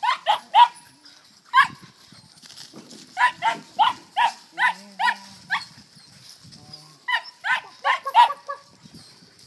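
Four-month-old border collie puppy yapping while working goats: short, high-pitched barks in quick runs of three to seven, about three a second, with pauses between runs.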